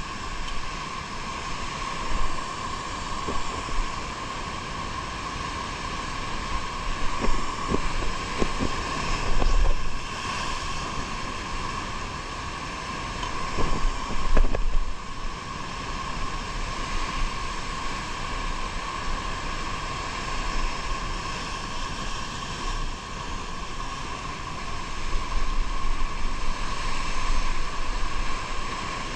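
A motor running steadily, with wind gusting on the microphone.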